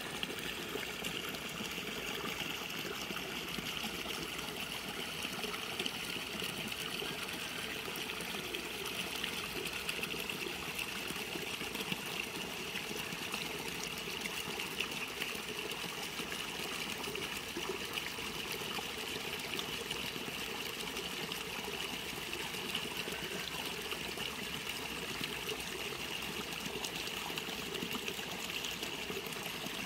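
Water trickling steadily as it runs through a gap in a mud bank into a shallow earthen irrigation ditch.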